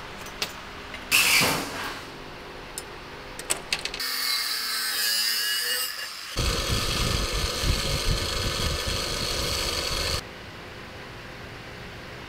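A power tool working a small metal part, in runs: a short loud burst about a second in, a high whine from about four seconds, then a heavier run that cuts off suddenly about ten seconds in. Light clicks of handling fall between them.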